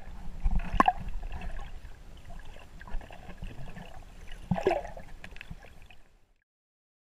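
Water sounds heard through a camera held underwater: a muffled low rumble and sloshing, with two short knocks, about a second in and again after about four and a half seconds. The sound cuts off abruptly about six seconds in.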